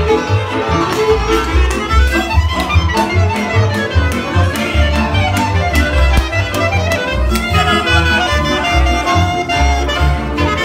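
Live Hungarian Gypsy band playing lively dance music, with a violin leading over a steady bass beat.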